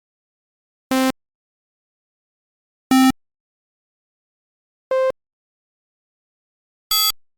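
Four short electronic button beeps, each a different pitched tone, about two seconds apart with silence between; the last is higher and brighter than the others.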